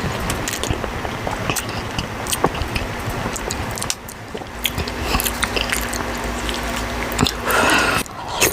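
Close-miked wet chewing of a big bite of boiled potato with creamy ranch dressing: sticky mouth clicks and smacks throughout.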